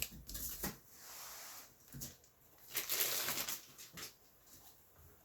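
Packing material rustling and crinkling in irregular bursts, with a few light knocks, as graded comic slabs are handled and pulled from the box.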